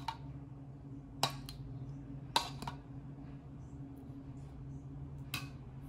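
A metal spoon clinks lightly against a drinking glass and a bowl while thick chia pudding is spooned in. There are a few sharp clinks, about a second, two and a half seconds and five and a half seconds in, over a steady low hum.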